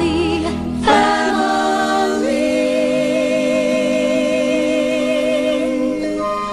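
Soundtrack song with singing voices, a new phrase coming in about a second in and then one long note held with vibrato.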